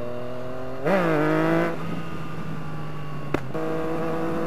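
Yamaha FZ-09's three-cylinder engine on the move: the engine note climbs, surges louder about a second in, then settles to a steady lower note. A single sharp exhaust pop cracks a little after three seconds in, before the engine picks up again near the end.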